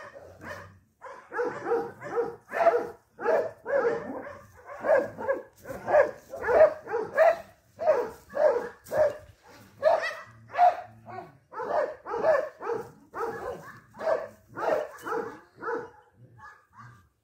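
A dog barking over and over in short, quick barks, two or three a second, growing fainter near the end.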